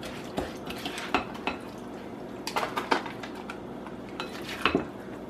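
A plastic serving spoon scraping and knocking against a glass mixing bowl and a plastic container as a thick, seedy suet mixture is scooped and packed. The clicks and scrapes come at irregular intervals.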